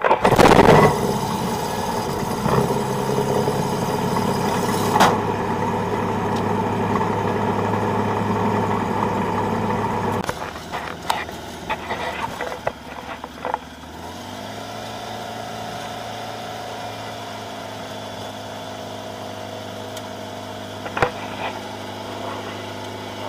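Kitfox light aircraft engine starting up, catching in the first second with a loud burst. It runs at a steady fast idle for about ten seconds, then drops back and settles into a lower, steady idle about fourteen seconds in.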